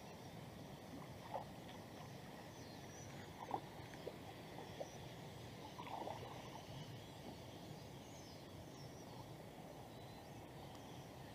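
Faint water sounds of a canoe moving over a calm river: a steady low wash with a few soft paddle splashes and drips, and faint bird calls in the distance.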